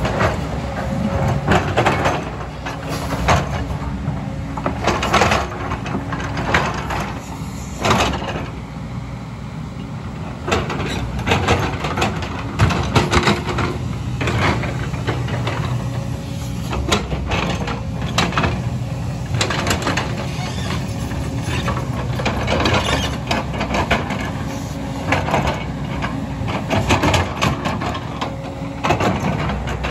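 JCB 225 LC tracked excavator working: the diesel engine runs steadily under load while irregular knocks and scrapes from the bucket digging through landslide debris come throughout.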